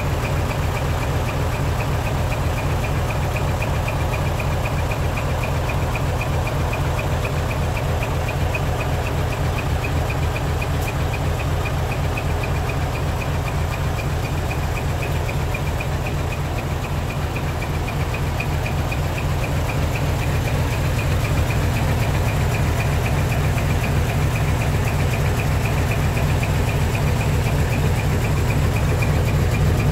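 Diesel engine of a Japanese decorated art truck (dekotora) fitted with a split exhaust manifold (mani-wari), running at a steady idle with a rhythmic exhaust rap. It gets a little louder about two-thirds of the way through.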